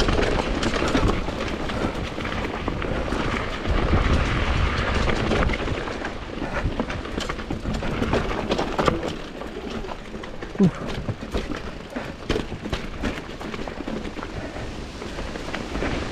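Downhill mountain bike (Commencal Supreme DH) descending a rough trail. The tyres roll over dirt and rocks under a constant rushing noise, with frequent sharp knocks and rattles from the bike and a deeper rumble about four seconds in.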